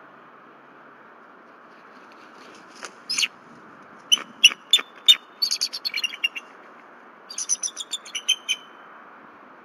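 Bald eagles calling at the nest as the mate arrives: high, sharp chirping notes, a couple about three seconds in, then two rapid chittering runs, over a steady hiss.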